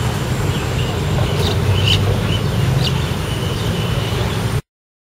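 Steady low outdoor rumble, like street traffic, with a few short high chirps over it; the sound cuts off abruptly about four and a half seconds in.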